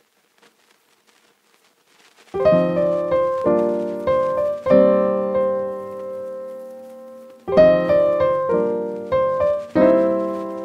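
Background piano music: slow chords that ring on, starting about two seconds in and struck again every second or so.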